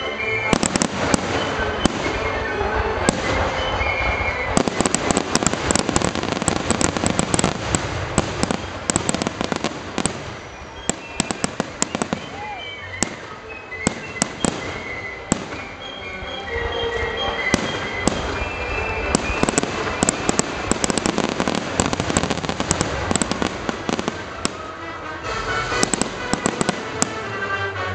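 Aerial firework shells bursting in a rapid series of sharp bangs and crackles. They thin out around the middle and come thick again in the second half, with music playing underneath.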